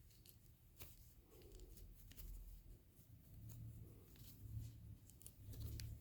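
Faint, scattered small clicks and snips of hand work over a low hum, typical of wire being cut and handled.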